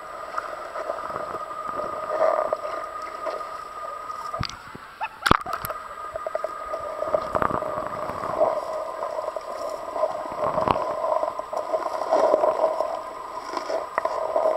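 Muffled gurgling and sloshing of river water heard with the microphone under the surface. A few sharp knocks come through, the loudest about five seconds in.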